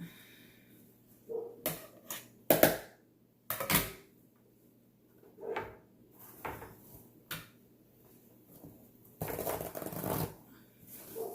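Seafood shells being cracked and broken apart: a series of sharp cracks and snaps, the loudest about three seconds in, and a longer crackling stretch near the end.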